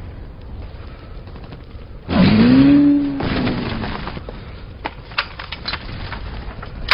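Battle sound effects of gunfire, with a man's long yell about two seconds in that rises and then falls in pitch. Scattered sharp single shots follow in the second half.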